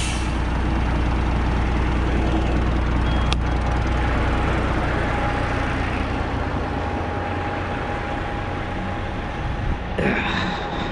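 Diesel truck engine idling, a steady low drone that fades about halfway through as the microphone moves away from it. A single sharp click comes a few seconds in, and there is a short rustle near the end.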